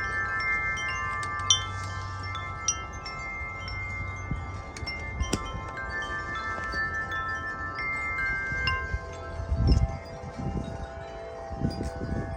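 Wind chimes ringing in the wind, the clapper striking the chimes again and again so that several overlapping tones ring on. Lower-pitched tones join in after about eight seconds, and a few gusts of wind rumble on the microphone near the end.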